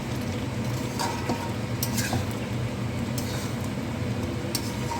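A spoon stirring a thick creamy chicken gravy in a pan: soft wet squelching, with a few sharp scrapes or clinks of the spoon against the pan about two seconds in and near the end. A steady low hum runs underneath.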